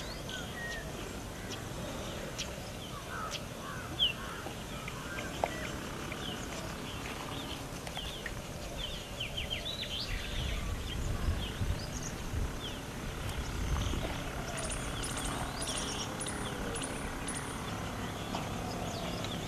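Outdoor ambience of small birds chirping, with many short chirps all through and a run of high, repeated notes about three quarters of the way in. A low rumble swells around the middle, and two sharp ticks stand out a few seconds in.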